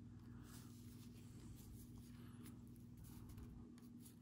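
Near silence: a steady low hum under faint scraping and rustling of trading cards being handled.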